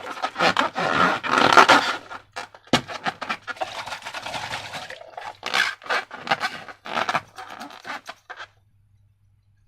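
Slime being squished and worked by hand: irregular wet crackling and squelching, with a sharper click about three seconds in, stopping shortly before the end.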